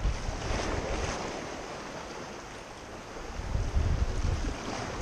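Wind buffeting the microphone over choppy sea water slapping around a kayak. The wind rumble eases in the middle and picks up again after about three and a half seconds.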